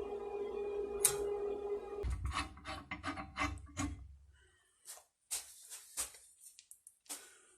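A quick run of about six scraping strokes, like filing or rasping a workpiece by hand, then a few scattered scrapes and sharp clicks.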